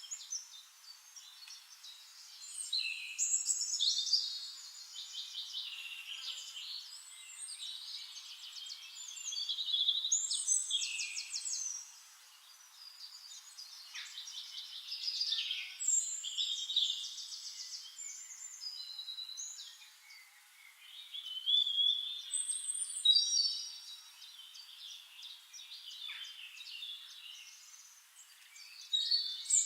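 Several songbirds singing over one another, a dense chorus of rapid trills, chirps and sweeping phrases, with louder bursts of song every few seconds.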